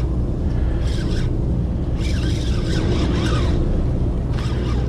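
Steady low drone of a party boat's engine running.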